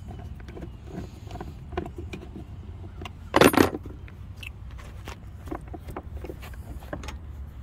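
Light clicks and rattles of hands handling parts in a scooter's plastic under-seat compartment, with one brief louder scrape about three and a half seconds in, over a steady low rumble.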